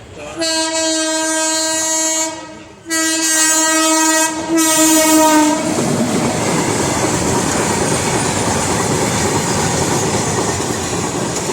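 Train horn sounding two long blasts, then the steady rumble and clatter of the train passing the level crossing.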